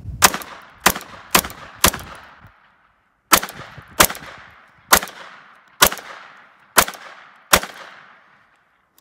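Ten shots from a compact .22 LR semi-automatic pistol fired at close range: four quick shots, a pause of about a second and a half, then six more a little under a second apart. Each sharp crack fades away briefly.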